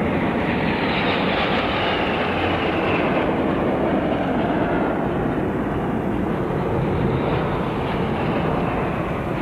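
Jet engines of a military formation of bombers, attack aircraft and fighters flying over, making a steady, even roar.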